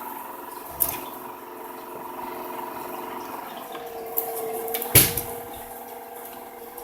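Vacuum cleaner motor running with a steady hum, with a knock about a second in and a louder knock about five seconds in as it bumps against something.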